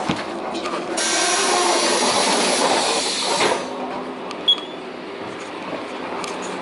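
City bus's compressed-air system hissing loudly for about two and a half seconds as the bus stops and its rear door opens, then a quieter steady rumble. A short high beep sounds about four and a half seconds in.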